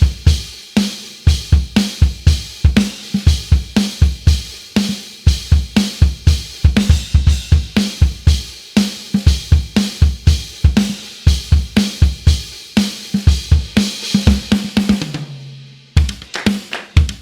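Sampled gospel drum kit from the EZdrummer 3 Gospel EZX library playing a steady groove of kick, snare, hi-hat and cymbals. Near the end a busier fill closes on a ringing low tom, then after a short break the groove starts again.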